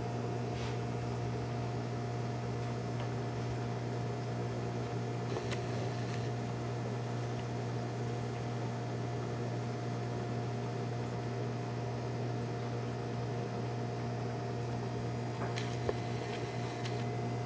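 Steady low mechanical hum of aquarium equipment running, with a few faint ticks.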